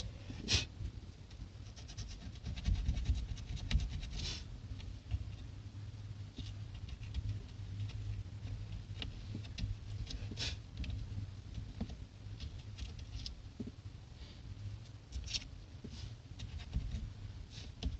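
Hands working on small plastic horn-button parts: scattered light clicks and ticks, with a few short scraping or rubbing sounds spread through, over a low steady rumble.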